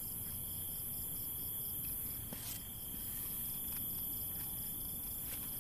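Crickets chirring steadily, a high, evenly pulsing insect chorus, with one faint tap about halfway through.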